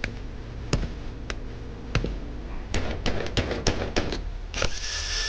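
Sharp, irregular clicks and knocks of tools and small metal parts being handled on a workbench, followed near the end by a brief hiss.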